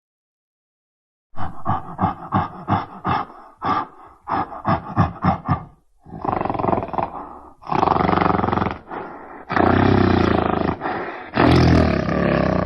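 Designed Gigantopithecus giant-ape monster sound effects: a fast run of short, sharp calls, about three or four a second, followed by about four long roars.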